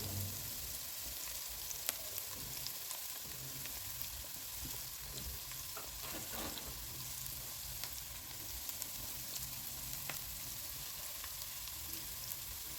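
Onions frying in oil in a pan: a steady sizzle with occasional small pops.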